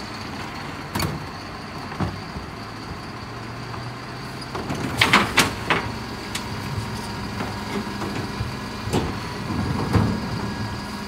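Mercedes-Benz Econic bin lorry idling while its Terberg electric bin lifters raise and tip two plastic wheelie bins into the rear hopper. The bins knock and clatter against the lifter, with a burst of loud bangs about five seconds in and more knocks near the end, over a steady high whine.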